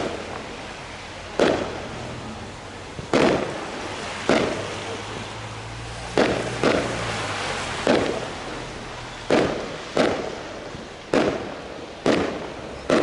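Fireworks bursting overhead: about a dozen sharp bangs, irregularly spaced roughly a second apart, each trailing off briefly.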